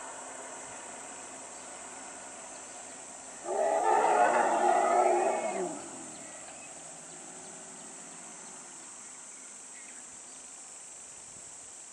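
Wild Asian elephant giving one loud call of about two seconds, starting about a third of the way in and ending with a falling pitch, over a steady high insect drone.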